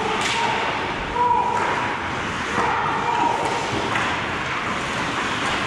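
Ice hockey play around the goal in an echoing rink: sharp knocks of sticks and puck a few times, over players' shouts and calls.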